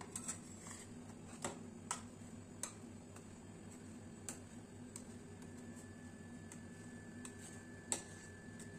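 Metal spatulas tapping and scraping on a frozen steel ice cream plate as the ice cream is chopped and spread thin: scattered sharp clicks, the loudest near the end, over a faint steady hum.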